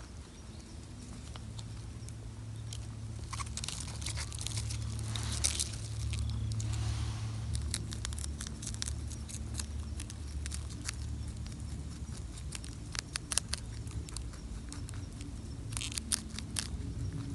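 Wild European rabbits chewing and tearing at fresh komatsuna leaves: quick crisp crunching clicks, busiest about four to five seconds in and again near the end, over a steady low rumble.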